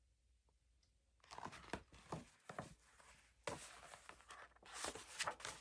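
Paper rustling and crinkling as a picture book is handled and its page turned, a string of sharp crackles starting about a second in.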